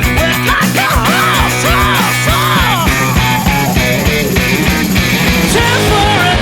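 Punk rock band playing an instrumental passage: steady drums and guitars, with a melodic line arching up and down in pitch.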